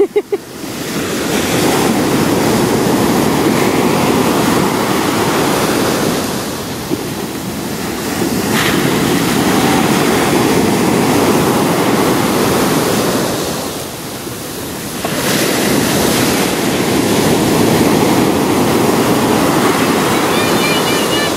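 Ocean surf breaking on a sandy beach: a steady rush of waves that swells and eases, with two lulls, around six and fourteen seconds in.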